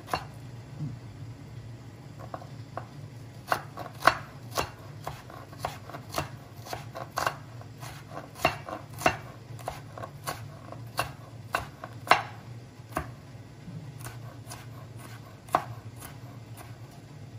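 Cleaver shredding carrot slices into thin strips on a plastic cutting board: sharp knocks of the blade through the carrot onto the board, about two a second.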